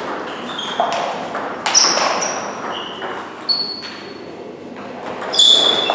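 Table tennis rally of forehand topspins against chop: the ball cracks off the bats, one faced with Palio AK47 Red rubber, and off the table, each hit followed by a short high ping. The hits come at irregular intervals, the loudest near the end.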